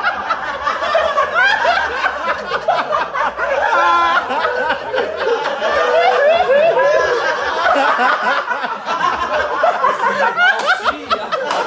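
A group of men laughing hard together, many voices overlapping in a steady stream of laughter mixed with some talk.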